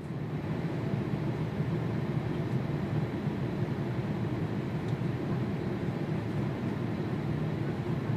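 Steady, even roar of an airliner in flight, heard from inside the cabin, with most of its weight in a low rumble.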